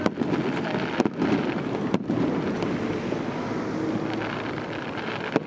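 Aerial fireworks exploding: three sharp bangs about a second apart at the start, then one more near the end, over a steady rushing background noise.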